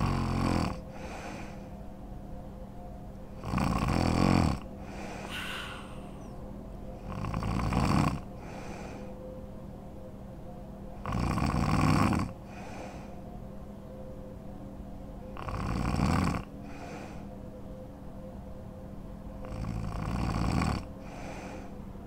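A woman snoring in her sleep: a loud snore about every four seconds, each lasting about a second, with quieter breathing between.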